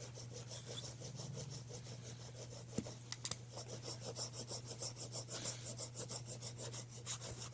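A hand roller being worked quickly back and forth over freshly laid Eternabond tape, giving a rapid run of rubbing, rasping strokes as it presses the tape down and pushes out air bubbles. A few sharp clicks come about three seconds in, over a steady low hum.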